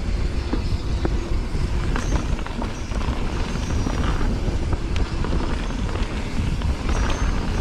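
Wind rushing over a GoPro Hero8's microphone while riding a mountain bike on a dirt trail, with tyres rumbling over the ground. Scattered sharp clicks and rattles from the bike come through the rumble.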